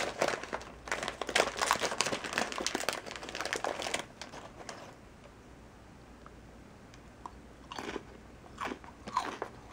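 Foil-lined snack bag of small chocolate chip cookies crinkling as it is opened and rummaged through for about four seconds. After a quiet pause, a few crisp crunches come near the end as a cookie is bitten.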